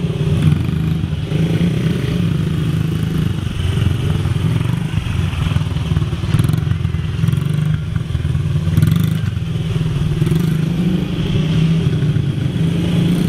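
Honda CRF50 mini dirt bike's small four-stroke single-cylinder engine running steadily as it is ridden around.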